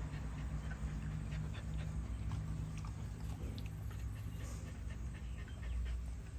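Small noises from a sleeping puppy: faint scattered clicks over a steady low rumble.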